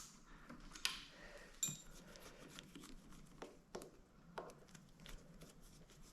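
Faint scattered clicks and light metallic clinks of tools and bike parts being handled, with two sharper knocks about a second in and a few more spread through the middle.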